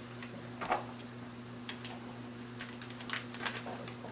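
Wrapping paper crinkling and tearing in short irregular rips and rustles as a present is unwrapped, over a steady low hum.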